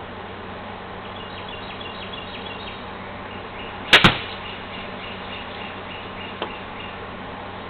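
A golf club striking a ball on a full swing: one sharp double crack about four seconds in, with a small click a couple of seconds later. Faint rapid high chirping and a steady hiss run underneath.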